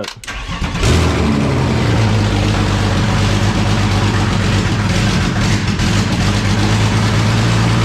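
A BMW project car's engine cranks briefly, catches about a second in, then keeps running steadily and loud. It is untuned after an EWS immobiliser delete and, by the owner's account, doesn't run the best.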